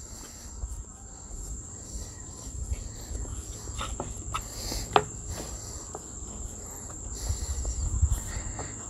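Hands pressing and stretching pizza dough on a floured wooden cutting board: soft thumps and rubbing, with a few light clicks, the sharpest about five seconds in. Over it runs a steady high-pitched insect trill.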